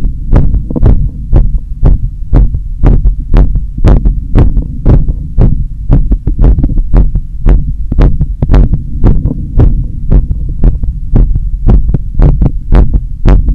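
Human heart sounds heard through a stethoscope at the chest apex: a steady, quick lub-dub rhythm of sharp thumps, the rate raised after a long run in summer heat. A constant low rumble runs beneath the beats.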